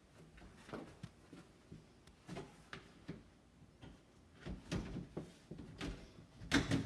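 Sheet-metal access panel of an air conditioner's air handler being fitted back in place: a string of irregular knocks and clunks, the loudest a cluster near the end.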